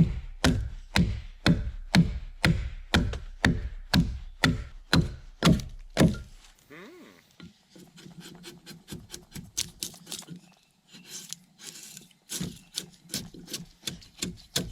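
Steady, even blows of a tool striking wood, about two a second, stopping about six seconds in; after that come quieter scattered knocks and clicks of work on wood.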